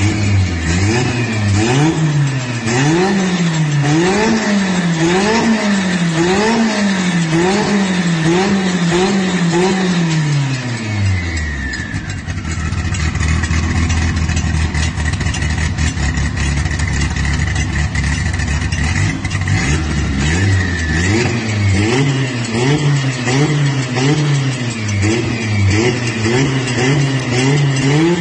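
Car engine revved up and down in quick blips about once a second, dropping to a steady idle for several seconds in the middle, then blipped again.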